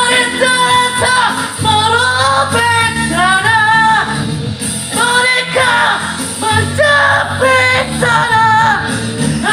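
A song: a solo singer holding long, wavering notes in phrases of a second or two, over instrumental backing.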